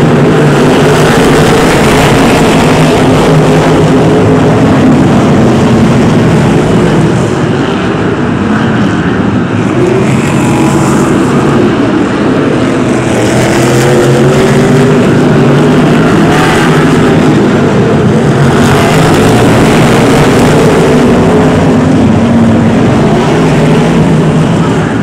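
A pack of BriSCA F1 stock cars' V8 engines racing, loud and continuous, the engine notes rising and falling as the cars accelerate and lift through the bends.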